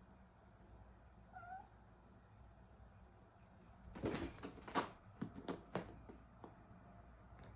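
Kitten giving one brief meow. About two and a half seconds later comes a quick run of thumps and claw scrabbling as it jumps onto an office chair and clambers onto the backrest.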